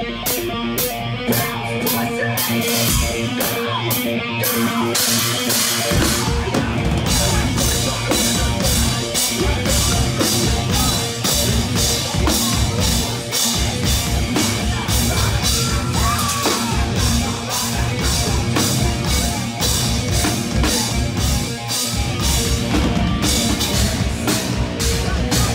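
Metalcore band playing live: distorted guitars and drums with steady cymbal hits. About six seconds in, the bass and kick drum come in heavily and the whole band plays at full weight.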